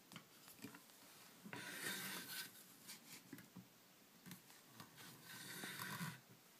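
Wooden door swung shut and open again on its steel butt hinges, heard faintly as two soft rubbing swishes about a second long each, with a few light handling clicks.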